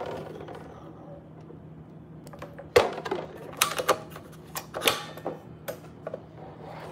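Handle and housing of a CRUX double rotating Belgian waffle maker being handled, giving a scatter of sharp clicks and knocks that start about three seconds in.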